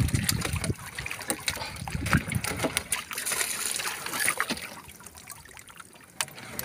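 Seawater splashing and trickling off a mesh bubo fish trap as it is hauled out of the sea, with scattered sharp clicks and knocks. Louder at first, it fades after about four seconds.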